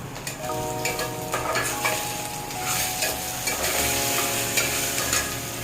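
Food sizzling as it fries in a pan and is stirred, with repeated quick scrapes and clicks of the spoon against the pan.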